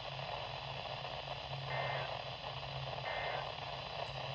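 Emergency Alert System end-of-message data bursts received over a hissing radio: two short two-tone data bursts about 1.3 s apart, with a third starting at the very end. They signal that the alert message is over. Steady static and a low hum run underneath.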